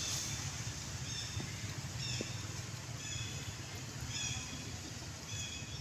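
Short high-pitched animal chirps, repeating about once a second, over a steady low rumble.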